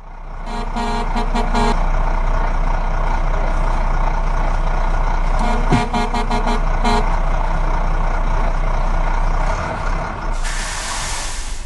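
Heavy truck sound effect: an engine running steadily, with two rapid series of short pitched horn toots, about a second in and again around six seconds, and a loud air-brake hiss near the end.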